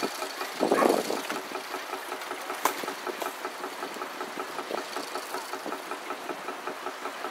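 Vintage tractor engines idling with a steady, even beat, one briefly louder about a second in.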